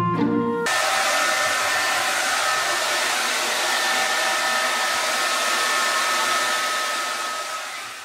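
Hand-held hair dryer running, a steady loud blowing hiss with a faint steady whine in it, starting just under a second in and fading out near the end.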